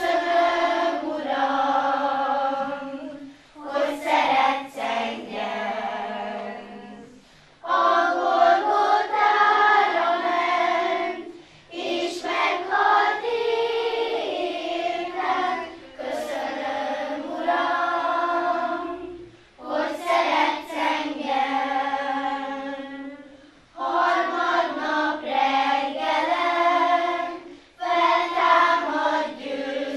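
Children's choir singing, in short phrases of about three to four seconds with brief pauses between them.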